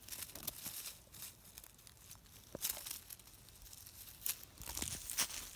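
Dry leaf litter and grass rustling and crackling in irregular short bursts as they are brushed and pushed through.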